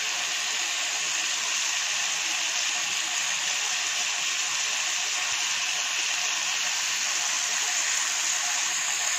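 Marinated chicken pieces sizzling in a hot frying pan, searing on high heat: a steady, even hiss of fat and marinade frying.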